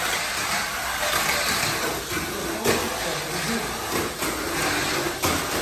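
Mini 4WD toy race cars running around a multi-lane plastic track: a steady rattling hiss of small motors and wheels, with a few sharp clicks.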